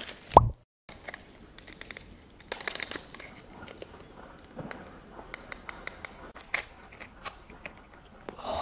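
A short falling tone, the loudest sound, right at the start, then a brief silence. After that comes plastic handling: scattered clicks, taps and crinkles as a small plastic toy candy container is turned over and twisted open.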